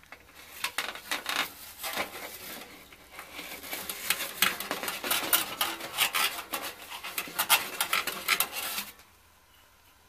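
Wire flue brush scrubbing and rattling against the sheet-metal vent of a gas water heater, a dense irregular run of metallic scrapes and clatter that cuts off suddenly near the end.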